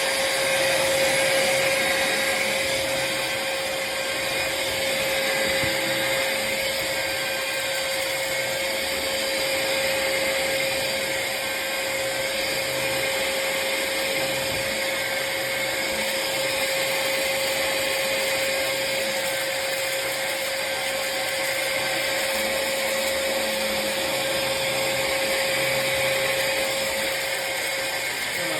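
Black+Decker POWERSERIES+ 20V MAX cordless stick vacuum running steadily: a constant motor whine over the rush of air.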